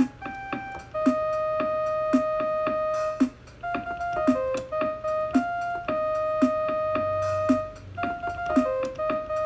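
Casio SA-series mini keyboard playing a simple melody of single held notes over its built-in rhythm pattern, with a steady beat about twice a second.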